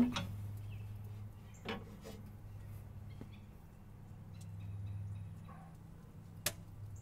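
The heavy steel lid of an offset smoker's cooking chamber swings open with a short clunk, over a steady low hum. A lighter knock follows a couple of seconds in, and there is a sharp click near the end as a probe thermometer is brought to the meat.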